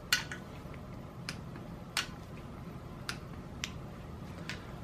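Click-type torque wrench set to 25 foot-pounds clicking on the intake manifold bolts, about six single sharp clicks spaced unevenly; each click signals a bolt already at its set torque.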